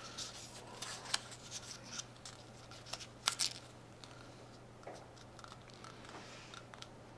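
Faint handling of paper and clear tape: soft rustles and a few sharp small ticks as a paper marking guide is taped around a model rocket's cardboard body tube.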